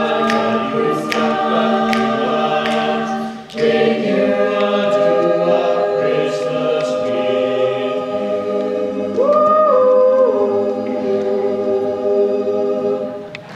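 Choir singing long held chords, breaking off briefly about three and a half seconds in. About nine seconds in, one high voice slides up and holds above the chord, and the singing stops near the end.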